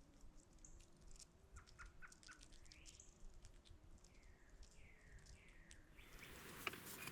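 Faint songbirds chirping: scattered short chirps and a few downward-slurred calls in the middle, over a faint steady low hum.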